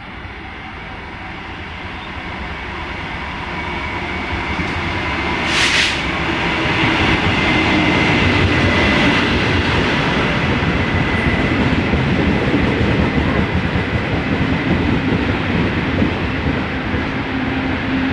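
A Taiwan Railway Chu-Kuang Express passenger train running along the platform. The rumble of the train grows over the first several seconds as it approaches, then stays loud as the carriages roll by. There is a short sharp hiss about six seconds in, and a thin high whine through the middle.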